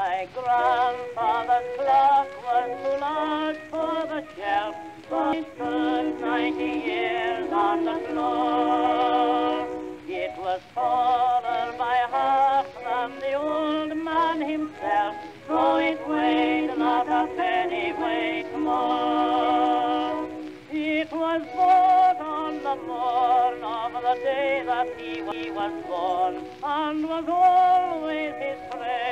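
Music with no words: a slow, voice-like lead melody with a strong vibrato over held chords.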